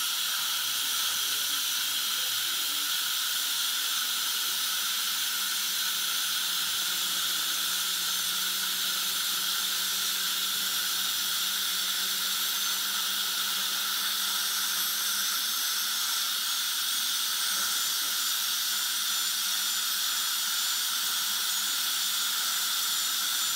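Steady, unbroken hiss of dental equipment at work in the mouth during a filling: the suction tip drawing air and water alongside the high-speed drill at the tooth.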